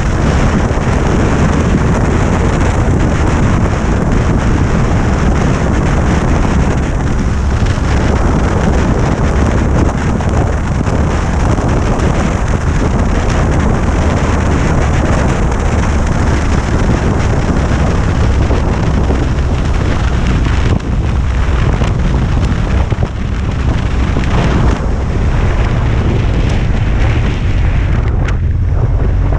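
Steady wind rush buffeting an action camera's microphone on a moving motorcycle, with engine and road rumble underneath; the level dips briefly a few times in the last third.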